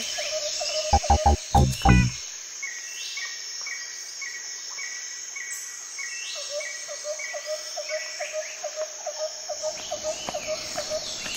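Nature ambience: a steady high insect chorus, with a run of evenly spaced high chirps and then a lower call repeating about three to four times a second. A few knocks come in the first two seconds.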